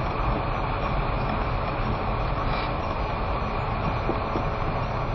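Steady road and engine noise inside a car driving on a snow-covered road, with tyres running over packed snow.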